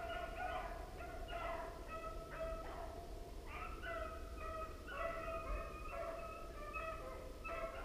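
Beagles baying on a rabbit hunt: a run of long, drawn-out calls, one after another and sometimes overlapping. This is the sound of the hounds giving voice on a rabbit's scent.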